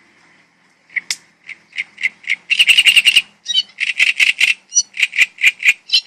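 A bird singing close by. After about a second of quiet, it gives a fast run of short, sharp, repeated notes with a dense trill near the middle, then more spaced notes.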